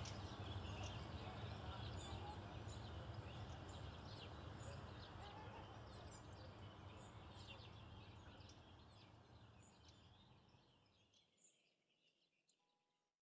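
Outdoor ambience with birds chirping over a low steady hum, fading out to silence about eight seconds in.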